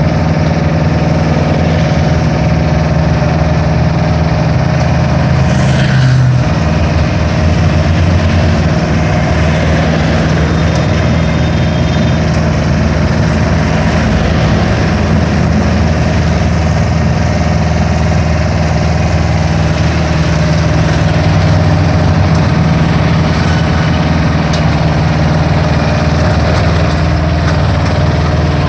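Iseki Frontier 110 mini combine harvester's diesel engine running steadily at close range while the machine is driven.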